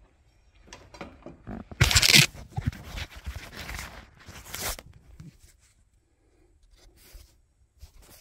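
Handling noise from the recording phone as it is moved and picked up: rustling and scraping against cloth and surfaces, with a loud scuff about two seconds in and another a little past the middle, and scattered small clicks.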